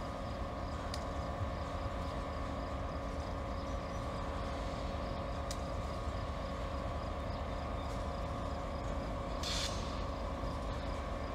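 EMD GP50 diesel locomotive's 16-cylinder two-stroke engine running steadily, a low rumble with a steady whine over it. There is a brief hiss about nine and a half seconds in.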